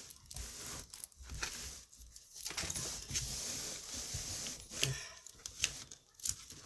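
A rolled diamond painting canvas being unrolled and handled, its surface and plastic cover film rustling and crinkling, with several sharp clicks and knocks along the way.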